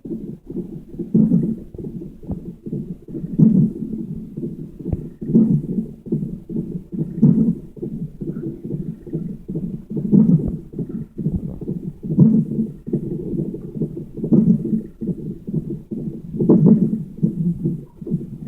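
Heart monitor audio: a continuous whooshing heartbeat, broken by a louder thump about every two seconds from hiccups.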